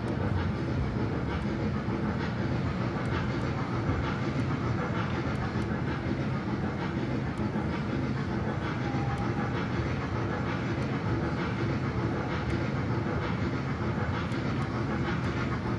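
Trackless mall ride-on train running steadily along a smooth floor: a continuous low rumble from its wheels and drive, with no breaks or changes.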